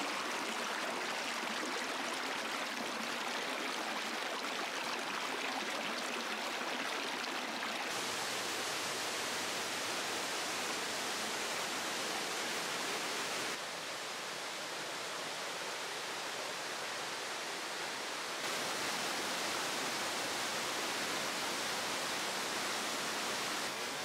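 Water of a shallow rocky stream rushing and splashing over stones, a steady hiss. It changes abruptly in level and brightness three times.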